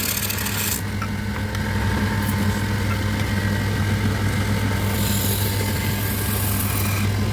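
An electric woodworking power tool running steadily with a constant hum, cutting or sanding wood with a harsh hiss in the first second and again for a couple of seconds near the end.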